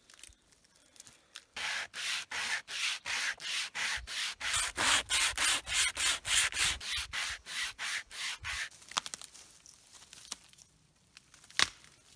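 Survival wire saw cutting through a thin pine trunk, scraping back and forth in quick, even strokes, about four a second, for several seconds. Near the end there is a single sharp crack as the sawn trunk is pushed over.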